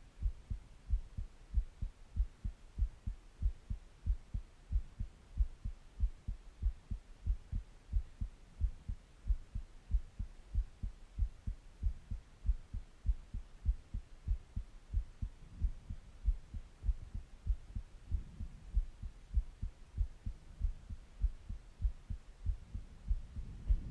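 Human heartbeat heard close up, as through a stethoscope: a steady, even series of low lub-dub thumps, a little over one beat a second.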